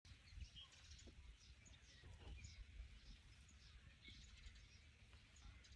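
Faint birdsong: small birds chirping in short scattered calls, over a low rumble.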